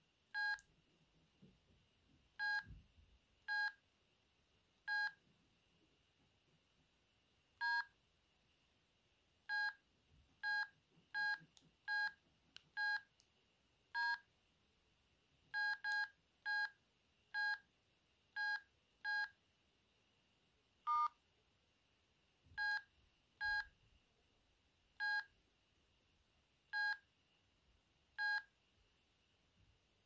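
Sendo S360 mobile phone keypad beeps as its buttons are pressed: about two dozen short, evenly pitched beeps at irregular intervals, some in quick succession, with one beep of a different pitch near the middle of the second half.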